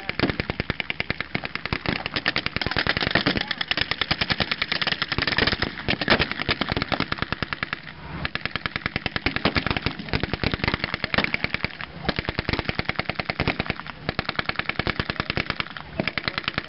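Blank-firing machine guns and rifles in WWII battle re-enactment, rapid automatic fire of many shots a second in long, near-continuous bursts.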